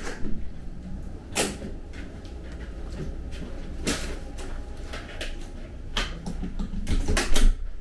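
Hotel room door and entryway handling noises: a few separate clicks and knocks a second or two apart, with a louder cluster near the end.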